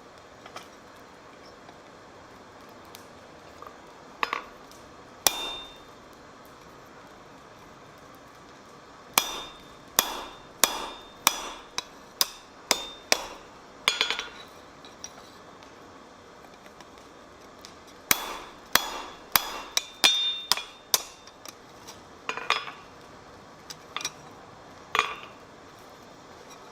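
Blacksmith's hand hammer forging a mild steel bar on an anvil: sharp ringing blows, a few single strikes, then two runs of steady blows about one and a half a second with a pause between, then a few more spaced strikes.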